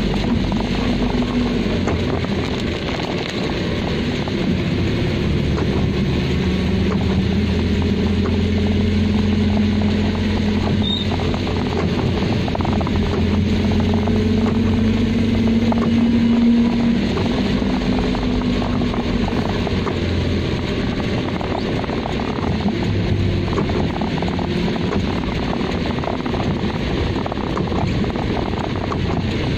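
Car driving on a rain-soaked road, heard from inside the cabin: a steady engine hum that drifts up and down in pitch, under a continuous hiss of tyres on wet tarmac.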